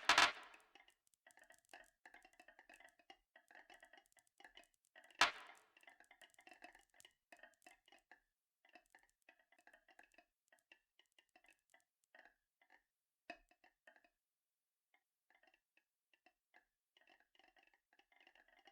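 Marbles rolling and clicking along a marble run track: a quiet, irregular patter of small clicks, with a louder knock about five seconds in and another around thirteen seconds.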